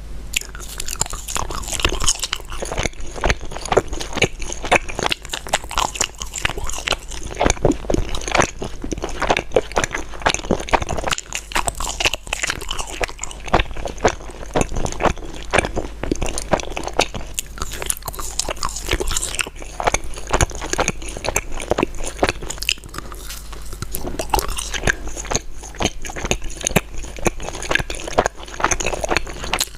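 Close-up chewing and biting of gummy candies, a continuous run of irregular small clicks and crunches.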